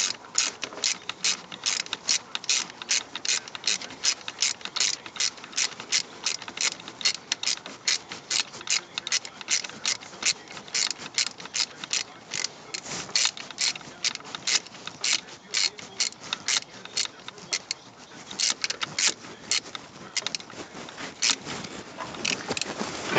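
Socket ratchet wrench clicking in a quick, even series as it runs a nut down a bolt, with a short pause about three-quarters of the way through before the clicking picks up again.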